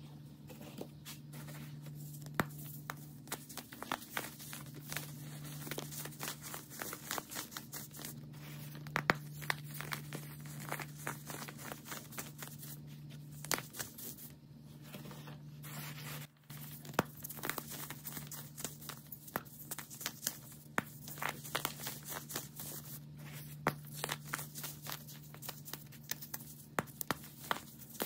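Clumps of baking soda crunching and crumbling between the fingers: a dense, irregular crackle of small breaks, with a steady low hum underneath.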